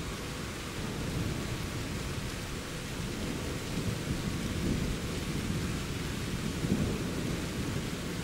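Thunder rumbling low after a lightning flash, swelling a couple of times over a steady hiss.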